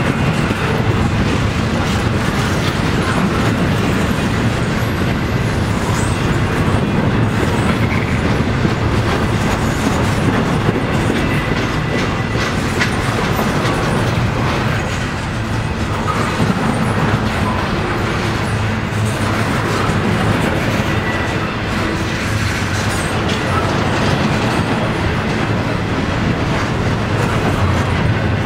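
Double-stack intermodal container well cars rolling slowly past, their steel wheels rumbling steadily and clicking over the rail joints, with a faint high wheel squeal about halfway through.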